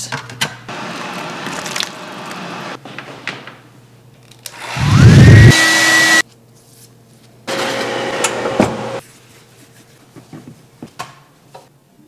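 Handheld hair dryer switched on about halfway through. Its motor whine rises in pitch and settles to a steady high tone over the rush of air, then cuts off after about a second and a half. Shorter stretches of rushing noise come before and after it.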